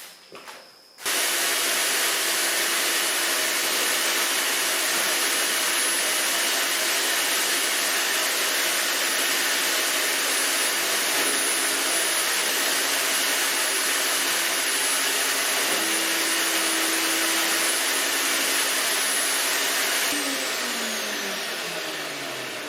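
Earthwise GS70015 electric wood chipper switched on about a second in, its motor and cutting blades running steadily as it works a jam of leafy, bushy sapling material through. Near the end it is switched off and spins down with a falling whine.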